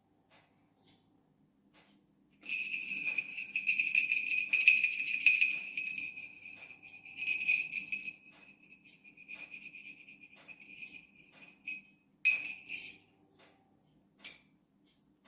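Mirrycle Trail Bell, a jingle-type bicycle bell, jingling as it is shaken in the hand. The jingling starts about two seconds in, runs steadily for some five seconds, then thins into scattered tinkles. A short second jingle comes near twelve seconds in, and a single tinkle follows near the end.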